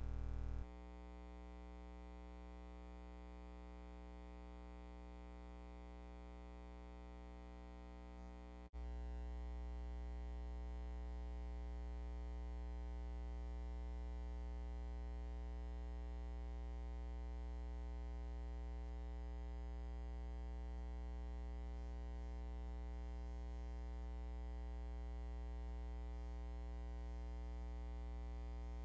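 Steady electrical hum and buzz with many even overtones and no other sound, the kind of mains hum a silent film transfer carries. It drops in level about a second in and comes back up with a faint click near nine seconds in.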